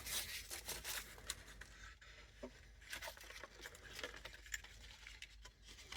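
Faint rustling with scattered light clicks and taps: packaging, packing peanuts and box, being handled and sorted through by hand.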